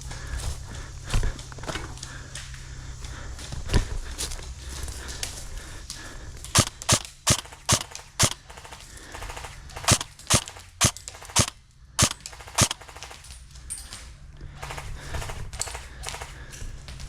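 Airsoft guns firing: sharp single shots, first two isolated, then two quick strings of about five or six shots each, a fraction of a second apart.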